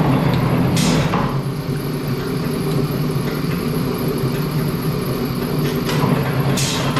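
Hydraulic press brake's pump motor running with a steady hum. There are a couple of sharp metallic clicks, one about a second in and one near the end.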